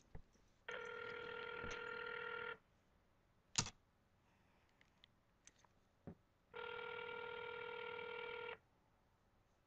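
Telephone ringback tone heard twice through the phone, each ring about two seconds long with a four-second gap, as an outgoing call waits to be answered. A sharp click comes between the two rings.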